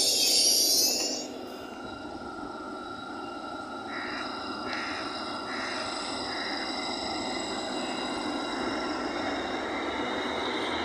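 LNER Class 801 Azuma electric train passing slowly along the platform. A loud hiss cuts off about a second in, leaving the train's steady multi-tone electric whine over a low rumble, which grows slowly louder.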